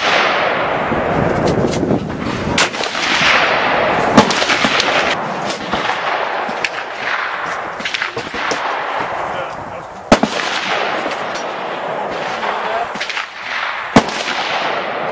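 Scattered gunshots on an outdoor shooting range: a few loud sharp reports and many fainter ones at irregular intervals, over steady background noise.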